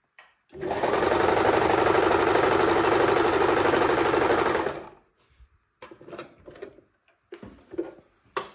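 Pfaff hobby 4260 sewing machine running at steady speed and stitching through fabric for about four seconds, then stopping. Afterwards a few short rustles and clicks as the fabric is moved under the presser foot.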